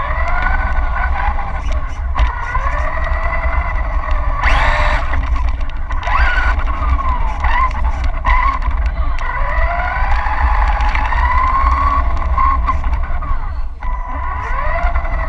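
Radio-controlled 1/10 4WD touring car's motor and drivetrain whining, rising and falling again and again as the throttle is worked, over a steady low rumble of the car rolling on tile. A short hissing burst about four and a half seconds in.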